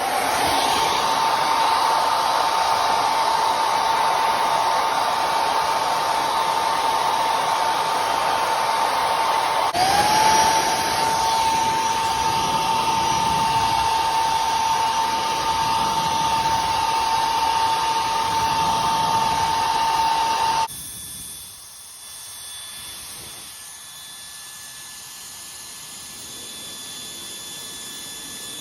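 High-speed hair dryer blowing hard, a loud rush of air with a steady high motor whine. About ten seconds in it cuts out briefly and spins back up, the whine rising in pitch. About twenty seconds in it drops sharply to a much quieter whir with a thinner, higher whine.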